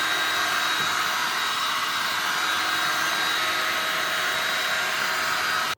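Heat gun running steadily, an even blowing rush with a faint motor whine, cutting off suddenly at the end. It is heating a headlight's butyl sealant to soften it so the lens can be pried off.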